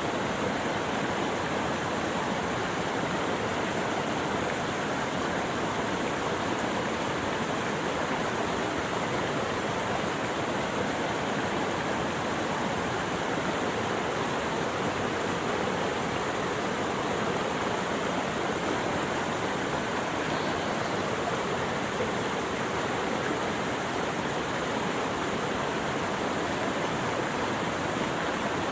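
Steady, even rush of flowing water, with no birds or other events standing out.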